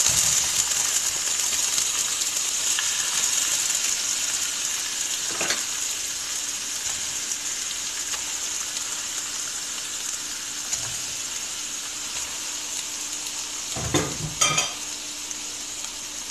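Raw chicken thighs sizzling in hot oil, loudest right after they go into the pan and growing gradually quieter. A few short knocks come about five seconds in and near the end.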